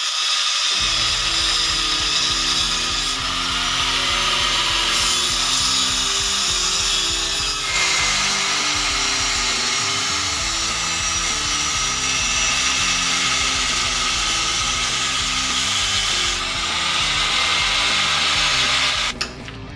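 Power tool noise on steel, changing abruptly every few seconds, under background music with a stepping bass line.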